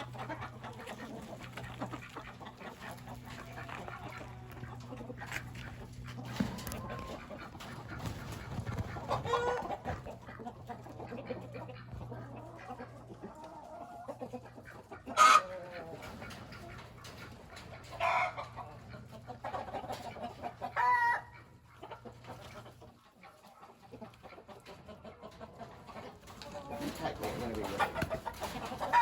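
Chickens clucking in a coop, with a few louder, sharper calls about 15, 18 and 21 seconds in. A low steady hum runs beneath them and stops about 23 seconds in.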